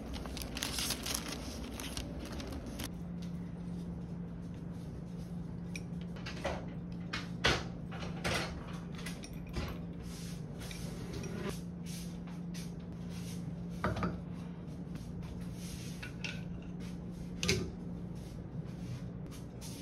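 Plastic gift bags crinkling and rustling for the first few seconds, then a steady low hum with a few sharp clinks and taps as food pieces and metal tweezers touch a ceramic bowl and a steel tray.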